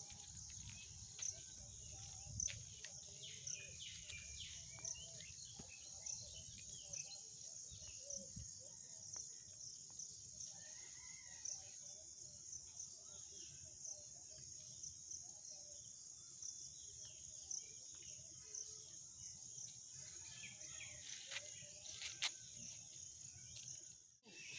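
Faint rural ambience: a steady high-pitched insect drone with a light regular pulse, and scattered bird chirps and calls.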